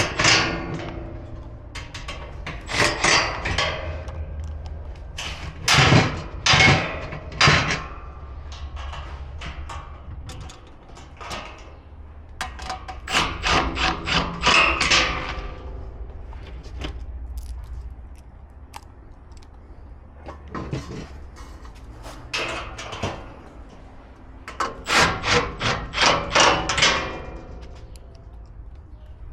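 Hand tools and parts of a stainless gas grill knocking and clicking as the grill is put together, in irregular clusters with quick runs of clicks, over a steady low hum.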